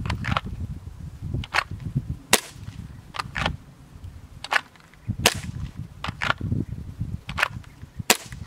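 Airsoft pistol firing about a dozen sharp, light pops, several in quick pairs, with a low rumble of wind on the microphone underneath.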